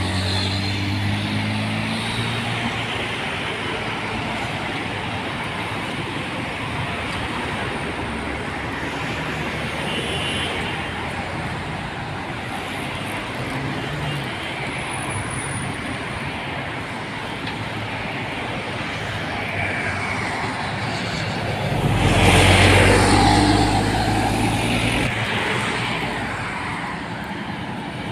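Road traffic: cars passing steadily on a multi-lane road, with a louder vehicle going past close by about three-quarters of the way through.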